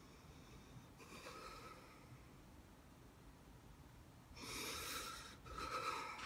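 A man breathing audibly through his nose: a faint breath about a second in, then two louder breaths near the end, the shaky breathing of someone close to tears.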